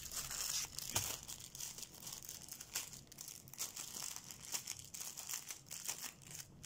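Plastic packaging bags crinkling and rustling while being handled and opened, in irregular crackles that come and go.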